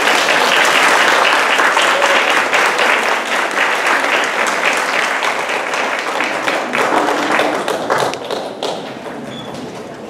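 Audience applauding, loudest at the start and thinning out toward the end into scattered claps.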